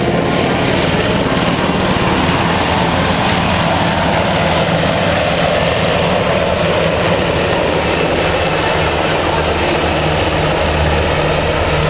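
Sikorsky UH-60 Black Hawk helicopter flying low past, loud and steady: the rapid chop of its main rotor blades over the whine of its twin turboshaft engines.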